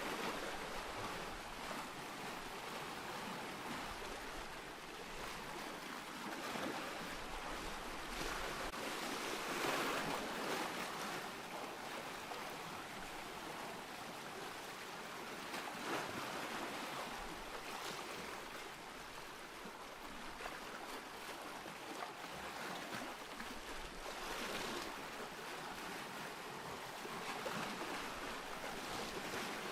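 Ocean surf: a steady wash of waves, swelling several times as larger waves come in.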